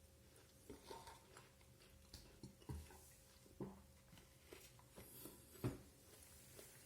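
Quiet eating sounds: chewing and small mouth and utensil clicks, with a few louder short knocks.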